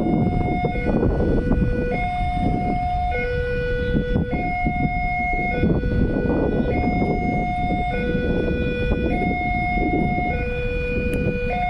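Railway level-crossing warning alarm sounding a slow two-tone electronic hi-lo chime, each note held for about a second, the signal that a train is approaching and the crossing gates are closed. A rumbling noise runs underneath.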